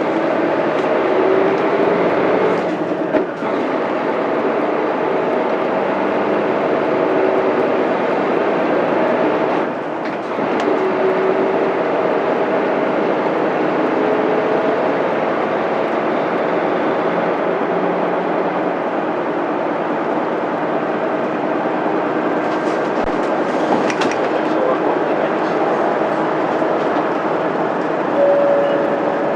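Mitsubishi Fuso Aerostar bus's 6M70 12.9-litre straight-six diesel running under way, its pitch rising in the first couple of seconds. The engine sound dips briefly twice, about 3 and 10 seconds in, then settles into steady cruising.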